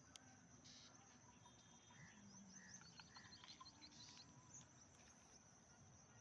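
Faint outdoor ambience: a steady high insect drone, with scattered short bird chirps about two to four seconds in.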